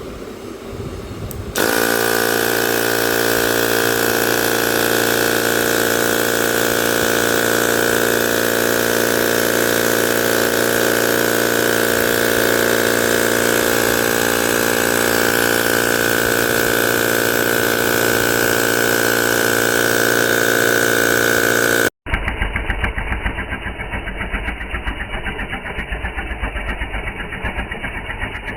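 Small electric motor of a cordless tyre inflator driving its tiny piston pump through metal gears, with a cooling fan on the other end of the shaft. It switches on abruptly about a second and a half in and runs steadily with a high, even tone. Near the end it changes to a rougher, rapidly pulsing sound.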